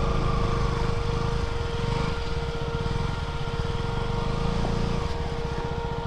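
Motorcycle engine running steadily, with a thin steady whine over its low pulsing.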